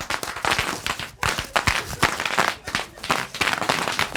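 Bubble wrap popping under rollerblade wheels in a rapid, irregular crackle of many sharp pops.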